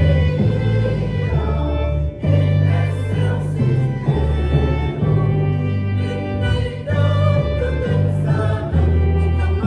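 A church choir singing a Vietnamese hymn over instrumental accompaniment. Held bass notes change every second or so beneath sustained chords.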